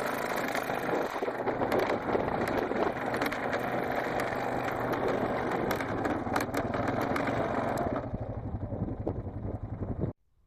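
Vehicle engine running steadily with rattling and clicking, then cutting off suddenly near the end.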